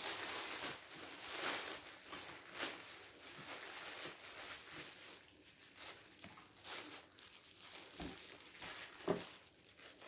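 Thin polythene bag crinkling and rustling as it is peeled off a model locomotive, busiest at first and thinning out. A couple of light knocks come near the end.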